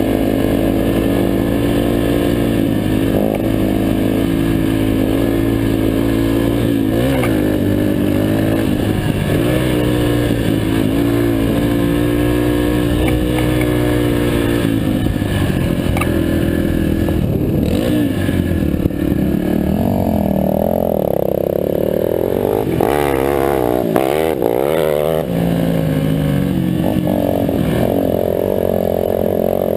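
Yamaha dirt bike's single-cylinder four-stroke engine running under way on a gravel trail, its pitch rising and falling with the throttle; the revs climb and waver about two-thirds of the way through.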